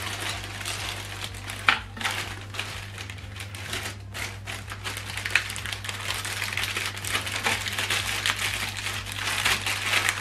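Paper and plastic packaging rustling and crinkling as it is handled, with scattered sharp clicks and crackles, one louder near the two-second mark.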